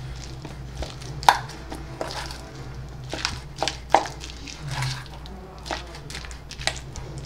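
Metal spoon clinking and scraping against a stainless steel bowl while mashing and stirring avocado with chopped onion and tomato, in a run of irregular sharp clinks.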